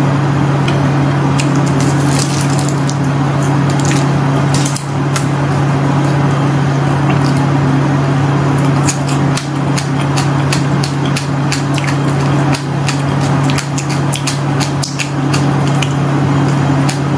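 Hard candy crunched and chewed close to the microphone: many sharp, irregular crunches and clicks over a loud, steady low hum.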